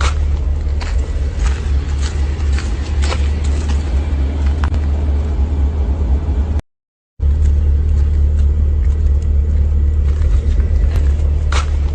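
Steady low rumble of a car on the move, with scattered faint clicks and rattles. The sound cuts out completely for about half a second just before seven seconds in, then resumes.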